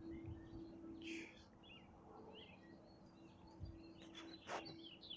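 Faint outdoor ambience with small birds chirping here and there, over a faint steady hum. Two brief rushing sounds, one about a second in and one near the end.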